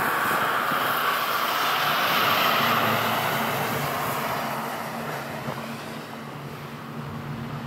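A vehicle going by on the road: a rushing tyre noise swells over the first few seconds and then fades, leaving a low steady engine hum.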